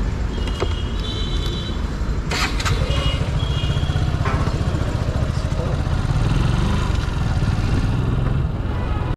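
A motor vehicle's engine running with a rapid low beat that grows stronger about two and a half seconds in as it pulls away into traffic. Short high tones sound twice in the first four seconds.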